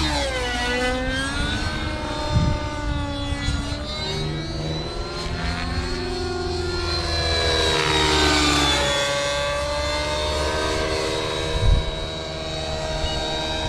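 R/C nitro helicopter with an O.S. 55 HZ-R engine and tuned pipe flying aerobatics: the engine and rotors run continuously, their pitch sweeping up and down over and over as the helicopter manoeuvres and passes, over a steady high whine. Two brief thumps cut in, one about two seconds in and one near the end.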